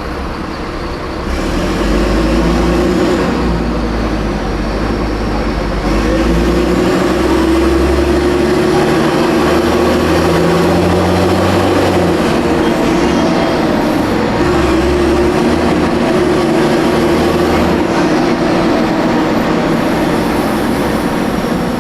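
Mercedes-Benz O500M bus's diesel engine running under load, with a holed exhaust and a slipping belt. The engine note grows louder about a second in and again a few seconds later, then its pitch steps up and down several times as the ZF Ecomat automatic gearbox works through the gears.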